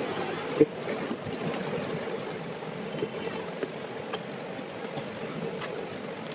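Steady rushing background noise with a few light clicks and taps, the first about half a second in the loudest.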